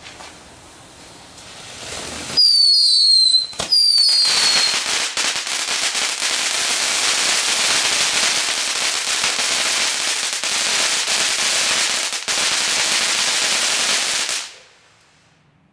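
Consumer fireworks going off close by. A faint hiss builds, then about two seconds in a loud start with two falling whistles, followed by about ten seconds of dense crackling and bangs that stops suddenly near the end.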